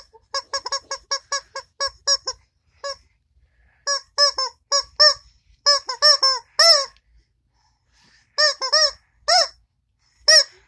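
Yellow rubber chicken toy squeezed again and again: short squeaks in quick runs, about ten in a row at first, then shorter clusters with gaps between.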